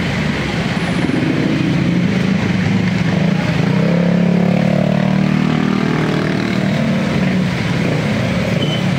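Motor vehicle engines in street traffic: a steady low engine drone, with an engine's pitch rising and falling as a vehicle goes by, about four to six seconds in.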